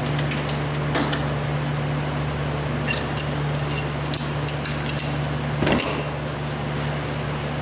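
Metal clinks and knocks as a Subaru EJ253 cylinder head is lifted off the block and loose metal parts are handled. There is a knock about a second in, a run of bright ringing clinks in the middle, and a heavier thump near the end, over a steady low hum.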